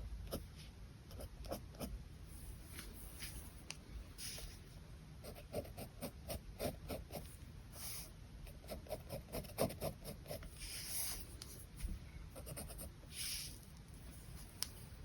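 Pen scratching on paper in runs of quick, short hatching strokes, with a few longer sweeping strokes now and then.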